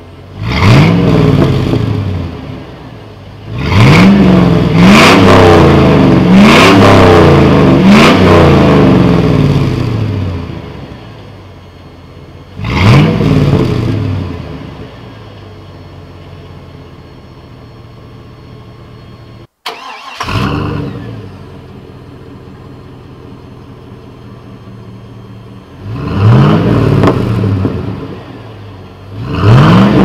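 1999 Chevrolet Silverado's 5.3L LM7 V8 free-revving through a Cherry Bomb Extreme single-chamber muffler: throttle blips and a run of quick revs, falling back to a steady idle between them. After a cut about two-thirds through, the same engine idles and blips through a Cherry Bomb M-80 muffler, with two more revs near the end.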